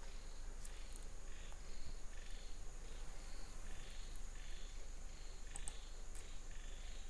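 Faint background noise with a steady mains hum and a steady high whine, over which soft insect-like chirps repeat a little less than twice a second; a few faint clicks.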